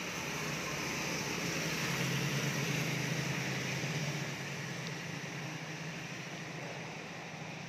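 A motor vehicle passing on a wet road: engine hum and tyre hiss swell to a peak about two to three seconds in, then fade, over a steady hiss.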